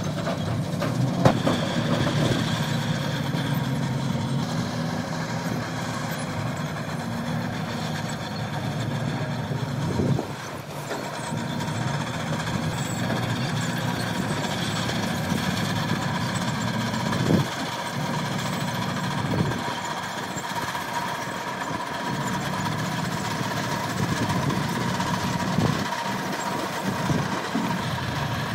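Heavy earthmoving machinery's diesel engine running steadily, with a few sharp knocks scattered through.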